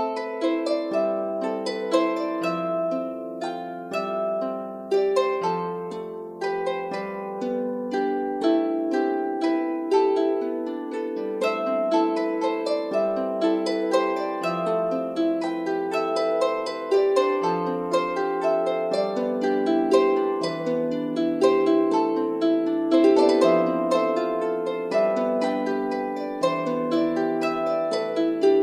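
Background music: a steady melody of plucked string notes over plucked chords, with no frying sound standing out.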